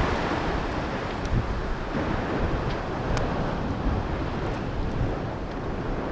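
Sea surf washing against a concrete sea wall, with wind buffeting the microphone. A few faint small clicks sound over it.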